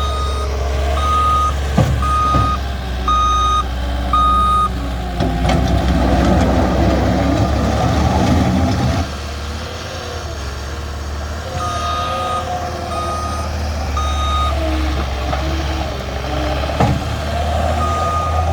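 Diesel engine of heavy construction equipment running with a steady low drone while a reversing alarm beeps at about one beep a second, stopping and starting again twice. From about five to nine seconds in, a louder rattling, rumbling stretch rises over the engine.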